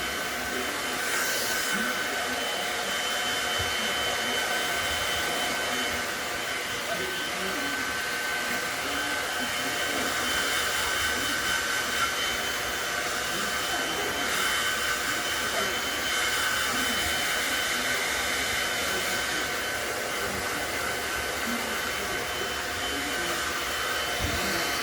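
Pet dryer blowing air steadily, a constant fan rush with a thin steady whine over it.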